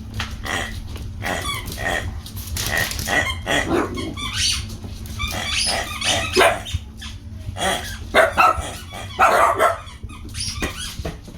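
Miniature dachshunds barking and growling at play, in many short bursts, the loudest coming in a run past the middle.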